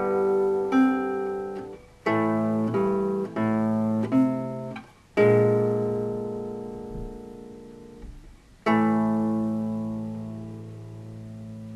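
Solo classical guitar playing the closing bars of a piece, plucked fingerstyle. A run of short chords leads to two full chords, one about five seconds in and the last about nine seconds in, each left to ring and slowly fade.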